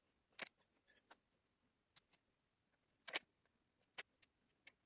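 Small plastic clicks and taps of Lego minifigure pieces being handled and pressed together: a handful of separate clicks over near silence, the loudest about three seconds in.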